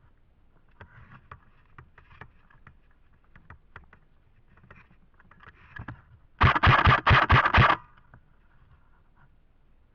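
Rustling and scattered light clicks of movement through cover, then a short rapid burst of airsoft gun fire, about eight shots in just over a second, midway through.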